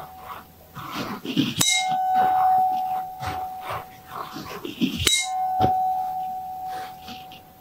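A pair of tuning forks is struck and rings close to the ear. There are two strikes, about a second and a half in and again about five seconds in, each leaving a clear steady tone that slowly fades.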